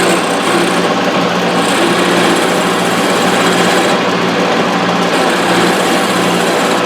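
Wood lathe running while a long-handled round-nosed turning tool cuts the spinning finial, a steady hiss of wood being shaved over the lathe's motor hum.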